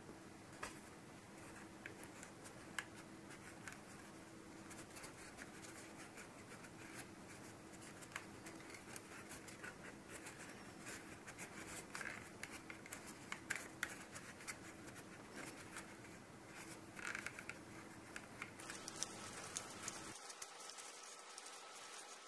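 Folded-paper flextangle being flexed and turned through its faces by hand: faint papery scratching with many light, irregular clicks and taps of the card folds.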